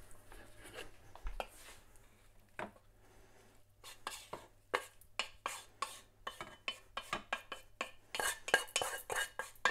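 Pots and a metal utensil clattering on a pan: a few scattered knocks, then from about four seconds in a run of quick sharp clinks, a few a second, busiest near the end.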